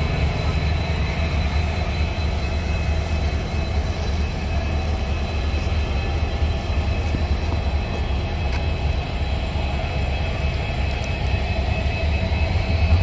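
A WAG-9HC electric locomotive standing with its auxiliaries running: a steady, loud hum with a high, even whine, and a faint tone rising near the end.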